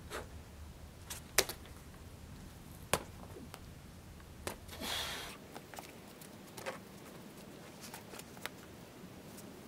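Sharp clicks and knocks of a climber's hands and shoes on a sandstone boulder, loudest about a second and a half and three seconds in, with a short hissing scrape about five seconds in.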